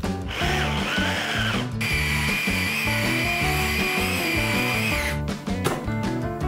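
Electric hand blender with a chopper bowl mincing raw chicken. The motor whines briefly, pauses, then runs again higher-pitched for about three seconds before stopping about five seconds in.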